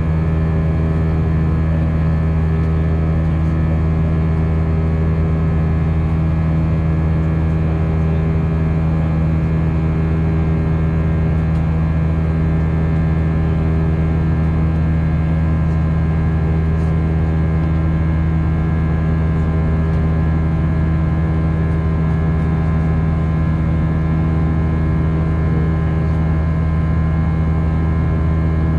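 Steady cabin drone of an Airbus A319 jet airliner in flight, heard from inside the cabin: engine and airflow noise with a constant hum of several steady low tones that doesn't change.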